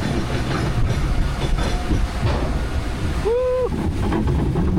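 Log flume ride boat rumbling and clattering as it heads into its first drop, with a rider's short "woo!" about three seconds in.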